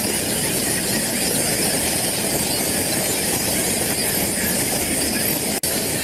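Cacophony of a crowded roosting colony of about 10,000 Egyptian fruit bats, many calls overlapping into one dense din, with a momentary break about five and a half seconds in.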